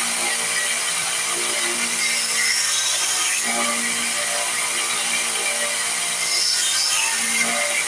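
Power sanding tool running steadily with a continuous abrasive hiss as it shapes and smooths a wooden knife handle.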